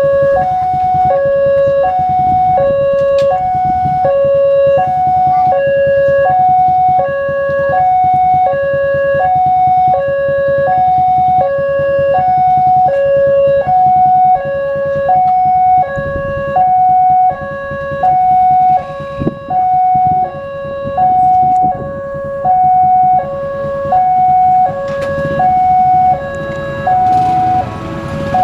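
Electronic warning alarm of an Indonesian railroad level crossing, sounding from the loudspeaker on the signal post while a train is due. It is a steady two-tone alternation, a lower and a higher tone each held for about half a second, repeating evenly.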